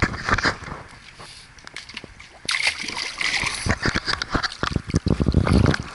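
Pool water splashing and sloshing close to an action camera sealed in its waterproof housing, with knocks from the housing being handled. The splashing starts suddenly about two and a half seconds in and grows heavier toward the end.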